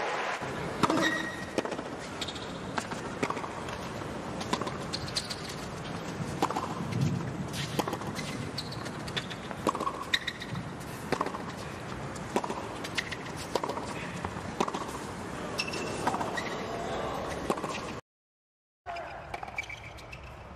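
Tennis rally on a hard court: rackets striking the ball back and forth, sharp hits about a second apart, over a low crowd hum. The sound drops out for about a second near the end at a cut.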